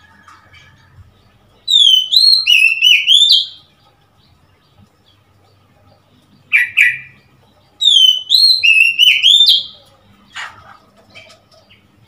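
Oriental magpie-robin singing: two loud phrases of clear, sliding whistled notes about six seconds apart, with a short double note between them and a few quieter notes near the end.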